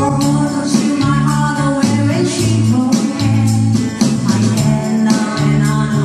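A woman singing a pop song into a microphone over keyboard accompaniment with a steady percussion beat.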